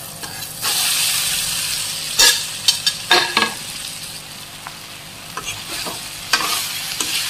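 Soaked poha (flattened rice) dropped into a hot pan of frying onion and tomato, sizzling loudly about half a second in, then dying down. A steel spatula knocks and scrapes against the pan as the mix is stirred, with a fresh burst of sizzling near the end.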